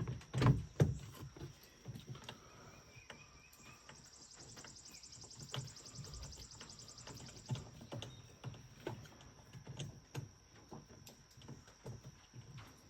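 Clunks and clicks of a Yamaha Rhino 660's gear shifter and linkage being worked by hand, heaviest in the first second, then scattered lighter knocks. An insect trills from about four seconds in to about seven and a half.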